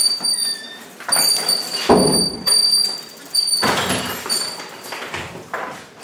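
A bicycle being wheeled down a narrow corridor and through a doorway, with knocks and heavier thuds, the loudest about two seconds in and again past the middle, as it bumps the door and frame. A thin high squeal comes and goes.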